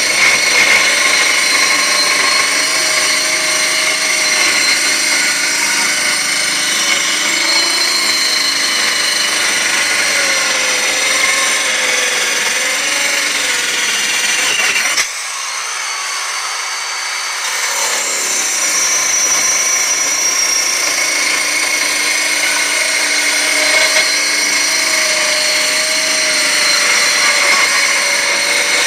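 Portable 5-inch circular saw ripping wood along the grain: the motor whines steadily and the blade hisses through the board. About halfway the sound suddenly drops and thins, then builds back up over a few seconds as the cut continues.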